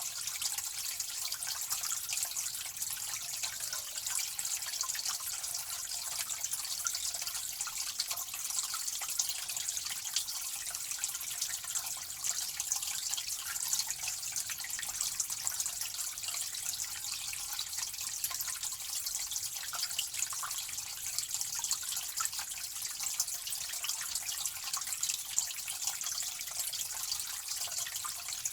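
Water running and splashing steadily, a bright hiss with fine spattering and little low end.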